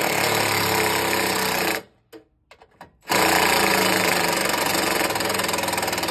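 Cordless impact driver hammering as it drives a screw into a metal electrical meter-base enclosure. It runs in two spells, stopping for about a second after the first, and cuts off abruptly at the end.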